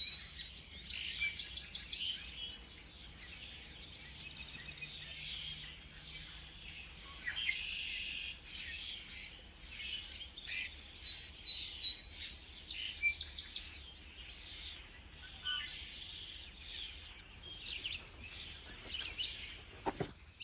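Many birds chirping and singing at once: a chorus of short, overlapping calls and trills.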